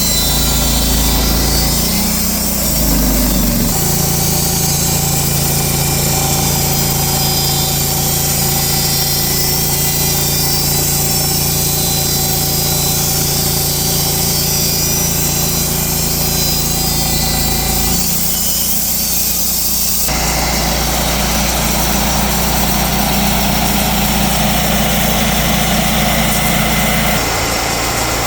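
Mobile sawmill running steadily with the drone of its engine and saw. The tone changes a few times: about three seconds in, around eighteen and twenty seconds, and again near the end.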